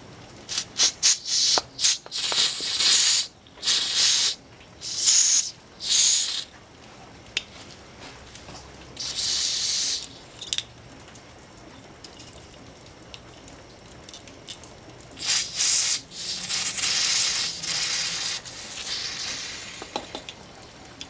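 Aerosol brake cleaner sprayed onto a roller rocker arm to flush out metal filings. It comes as a run of short spray bursts in the first few seconds, a one-second burst near the middle, and a longer spray of several seconds near the end.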